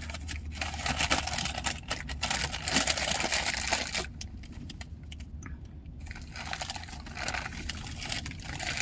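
Crunchy chewing of crackers close to the microphone: a run of small crackling clicks, pausing for a couple of seconds about four seconds in, then starting again.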